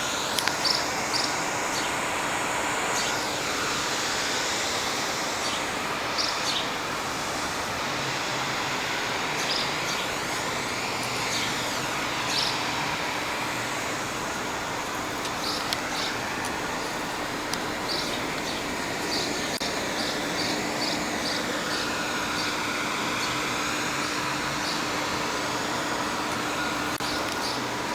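Birds chirping in short calls, scattered throughout, over a steady background noise of road traffic.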